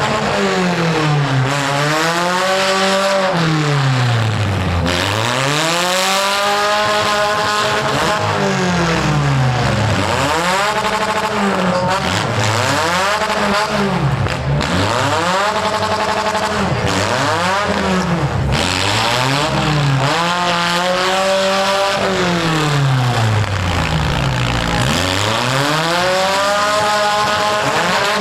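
Economy compact demolition-derby car engines revving up and down over and over, each surge rising and falling every couple of seconds, with more than one engine heard at times.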